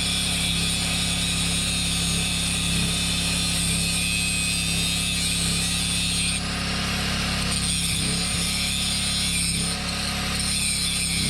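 Harbor Freight angle grinder with a cutting wheel grinding through a steel trailer kingpin lock, a steady hissing whine over a low hum. The grinding sound shifts briefly about six seconds in and dips again near ten seconds, as the pressure on the cut changes.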